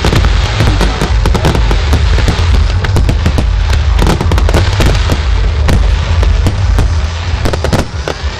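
Fireworks display in a full barrage: many aerial shells bursting in quick succession, a dense run of sharp bangs and crackle over a continuous deep rumble, easing off slightly near the end.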